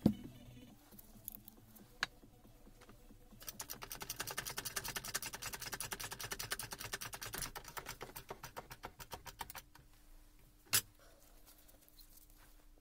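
A bearing being pressed onto the motor armature shaft of a Hilti TE 500-AVR breaker in a workshop press. A fast, even run of clicks lasts about six seconds, then one sharp crack comes near the end. A few single clicks sound in the first two seconds.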